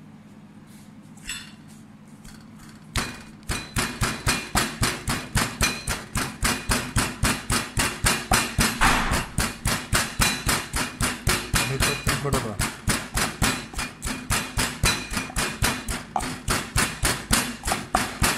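Knife chopping fast on a cutting board, an even run of about four to five strokes a second that starts about three seconds in, after a single light clink.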